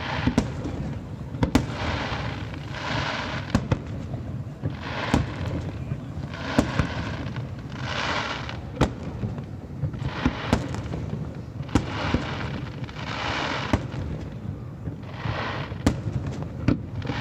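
Aerial fireworks display: sharp bangs of shells bursting at irregular intervals, some in quick clusters, with repeated bursts of hissing crackle between them over a steady low rumble.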